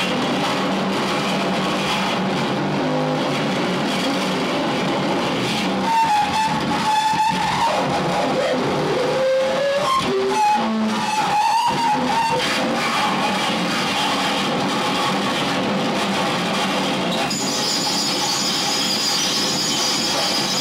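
Harsh noise performance: a continuous wall of distorted noise from a turntable-and-effects rig, with squealing tones that slide up and down a few seconds in and a high whistling tone joining near the end.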